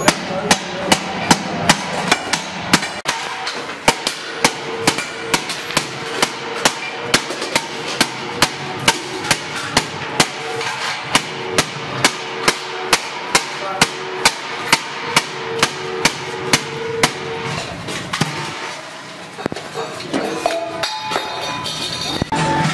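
Hand hammer striking a stainless steel milk can body over an iron block: a steady run of about two to three metal strikes a second that stops a few seconds before the end. Background music plays underneath.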